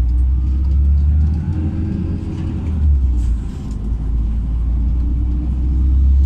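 LiAZ 5292.67 city bus under way, heard on board: a loud, steady low rumble from its YaMZ-53624 compressed-natural-gas engine and running gear, with a faint engine note rising and falling as it drives.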